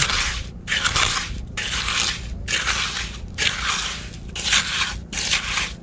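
Repeated scraping, crunching strokes of digging in wet beach sand, about one a second, following a razor clam's burrow.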